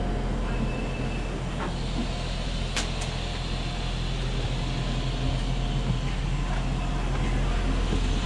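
Steady low electrical hum and rumble inside an SKM Tricity electric multiple unit standing at a station, with two sharp clicks close together about three seconds in.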